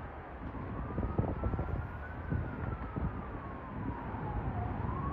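An emergency vehicle siren wailing, its pitch slowly rising and falling, over low rumbling and irregular low thumps.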